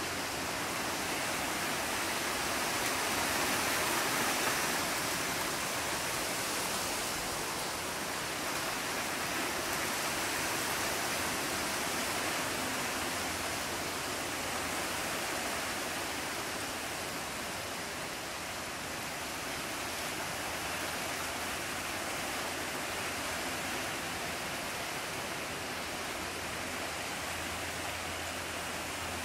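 Steady, even outdoor hiss with no distinct events, swelling slightly about four seconds in.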